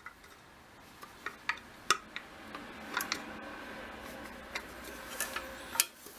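Scattered light clicks and taps, about ten, from small metal parts of a bread maker's bucket and kneading-shaft bearing being handled and fitted.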